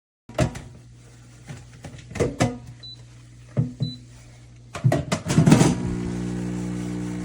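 Clicks and knocks of an espresso machine being handled, with two short electronic beeps, then the machine's pump starting about six seconds in with a steady buzzing hum.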